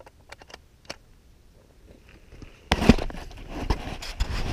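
A few faint clicks, then about two and a half seconds in a sudden loud burst of rustling handling noise and wind buffeting on the microphone as the camera is picked up, with a knock just after.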